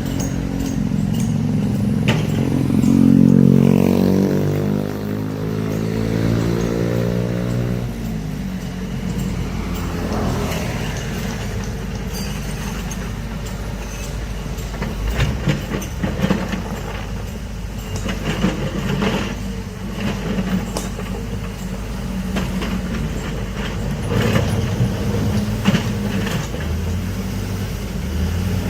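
A large engine running. Its pitch swells and then falls over several seconds about three seconds in, followed by a steady rumble with scattered metallic clanks and knocks.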